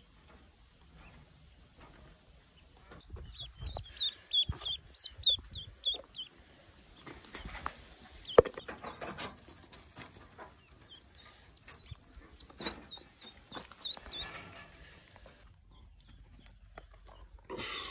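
Newly hatched ducklings peeping in runs of short, high cheeps, several times over. Rustling and knocks come from the ducklings being handled, with one sharp click about eight seconds in.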